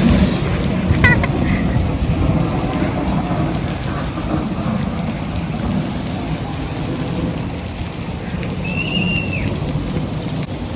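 Artificial rain falling steadily from an overhead rain installation, with a constant, even rush of water hitting the ground.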